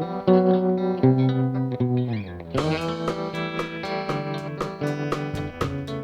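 Folk-rock band playing an instrumental passage: guitar chords and lines, with a downward sliding glide about two seconds in. Then drums come in with a steady beat of sharp strokes, about four a second.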